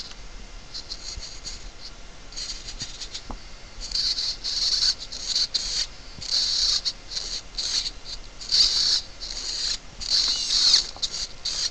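Hobby radio-control servos whirring in short, irregular bursts as they swing an animatronic tongue left and right, with some up-and-down movement mixed in. The bursts are high-pitched and come thicker from about four seconds in.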